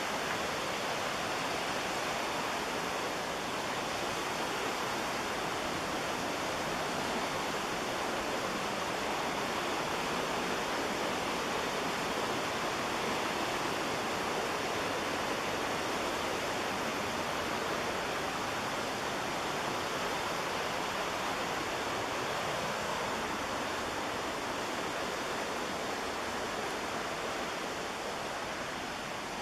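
Steady rush of fast-flowing mountain river water from the McKenzie River, an even hiss that eases slightly near the end.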